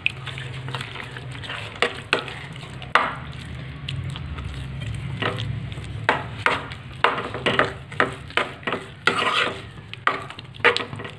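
Steel spatula scraping and stirring a wet besan halwa mixture around a steel kadhai, just after water has been poured onto the roasted gram flour. The strokes come sharper and more often from about halfway through, over a low steady hum.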